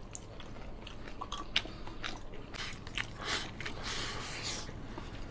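People eating braised mackerel and rice: chewing and biting, with short clicks of chopsticks against bowls and scraping as rice is shovelled in.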